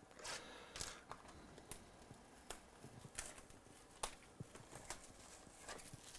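Faint rustling and scattered light clicks of trading cards and their plastic sleeves and wrappers being handled.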